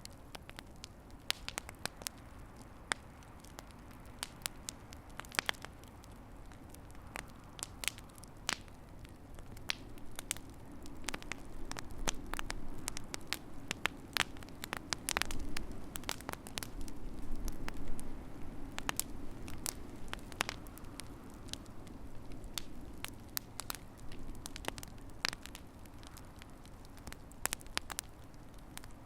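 Fireplace fire crackling, with sharp, irregular pops over a low rush of flame that grows louder for several seconds in the middle.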